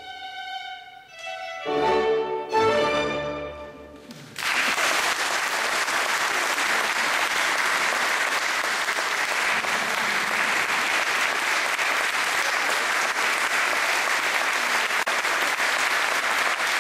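A chamber ensemble of violin, viola, saxophone, bassoon, contrabassoon and piano plays its closing chords, which stop about four seconds in. An audience then breaks into steady applause.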